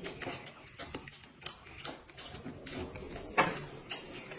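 Two people eating with chopsticks: chewing and lip-smacking mixed with light clicks of chopsticks on dishes, and one sharper click about three and a half seconds in.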